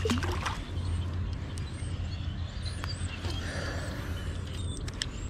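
A released panfish splashes back into the pond at the start. After that there is a steady low rumble of outdoor background, with small birds chirping briefly several times and a few sharp clicks near the end.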